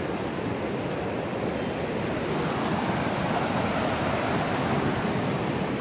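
Swollen river water rushing through the sluice openings of a concrete check dam and churning into white water below it: a steady, unbroken rush.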